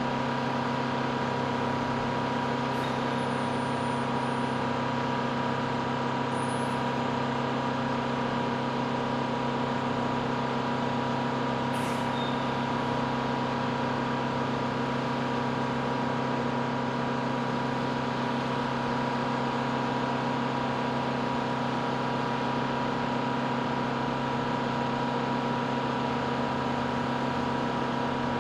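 Steady mechanical engine drone with a constant, unchanging hum and no revving, as heavy machinery idles on the flight line.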